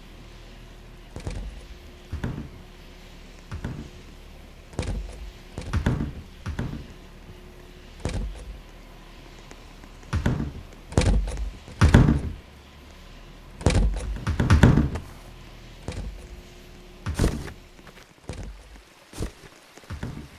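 A series of about fifteen irregular thuds and knocks, the loudest around the middle, over a faint steady hum.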